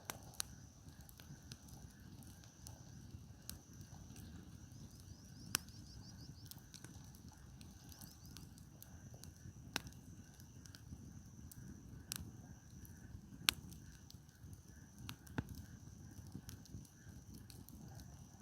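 Wood campfire burning, with sharp pops and crackles from the firewood at irregular intervals over a low steady rumble.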